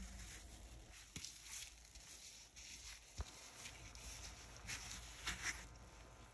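Faint crackling and soft hissy rustles from a layer of soap foam, with a couple of small clicks.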